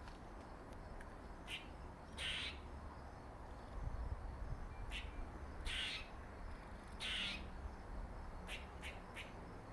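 A squirrel giving a series of short, harsh calls at irregular intervals, some a little longer than others, with three quick ones close together near the end.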